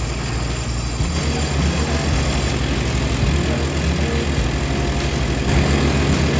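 Instrumental backing music: sustained low notes and chords that change every second or so.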